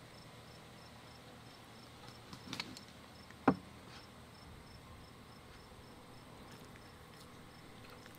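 A cricket chirping steadily in the background, a short high chirp repeated two or three times a second. About halfway through come a few light clicks and then one sharp knock, the loudest sound.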